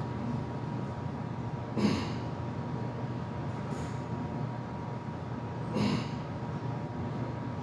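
Forceful breathing of a man working through a heavy, high-rep set of barbell back squats (315 lb): a sharp exhale about two seconds in and another about six seconds in, over a steady background hum.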